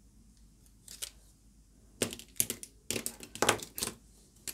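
Fineliner pens clicking and clattering against each other and the wooden tabletop as they are laid out. A couple of light clicks come about a second in, then a quick run of knocks in the second half.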